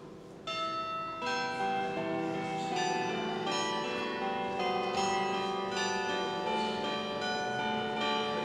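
Bells pealing: many overlapping struck bell tones at different pitches, a new round coming in about half a second in and ringing on with fresh strikes every fraction of a second.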